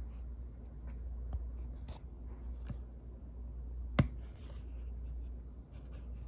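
Hands handling a Panasonic SX56 cassette Walkman: light rubbing and small clicks, with one sharp click about four seconds in, over a steady low hum.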